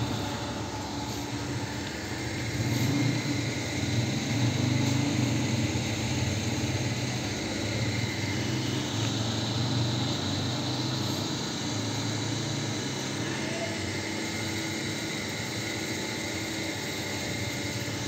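Steady low drone of a running engine or motor, with an even hum and no clear changes.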